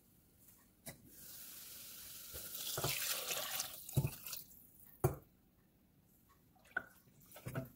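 Seasoned broth poured from a stainless steel saucepan into a stockpot of vegetables: a steady splashing pour for about three seconds. There are several sharp metal knocks of pan and pot along the way.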